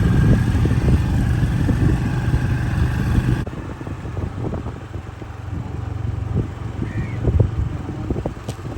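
Motor scooter running on the road, with wind rumbling on the microphone. A little over three seconds in, it cuts abruptly to a quieter stretch with scattered low thumps.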